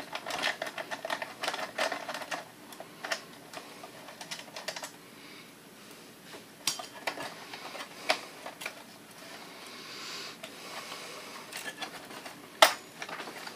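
Small metal clicks and taps of a screwdriver, screws and sheet-metal parts being handled while a slide projector is taken apart. There is a quick run of clicks in the first few seconds, scattered ones after that, and one sharper knock near the end.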